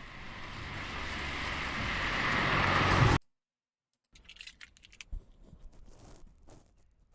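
Recorded car sound effect: a car approaching, its engine and tyre noise growing steadily louder for about three seconds, then cut off abruptly. After a short gap, fainter rattling and clicking.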